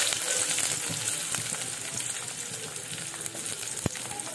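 Sliced onions frying in hot oil in an aluminium karahi: a steady sizzle, strongest at first just after they go into the pan, then easing off a little. A single sharp click about four seconds in.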